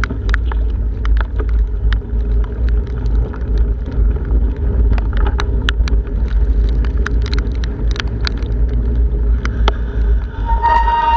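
Wind buffeting the microphone of a camera on a moving bicycle in rain: a heavy, steady rumble with many sharp ticks and taps throughout. Near the end, a brief high squeal of bicycle brakes as the bike pulls up.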